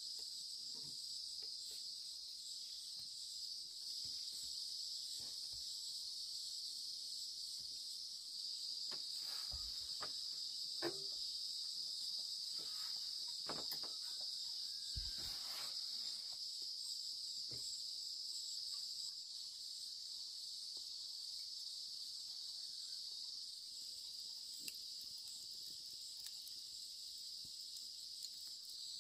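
Steady high-pitched chorus of insects, likely crickets, with a handful of light knocks and clicks scattered through the middle.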